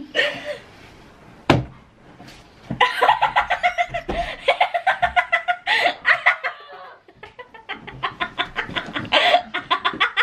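Young people laughing hard in long runs of quick, repeated bursts, with a single sharp tap about a second and a half in.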